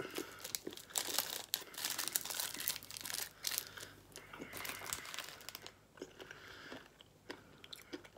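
Plastic chocolate-bar wrapper crinkling and rustling as it is handled, in dense irregular crackles that die down about six seconds in.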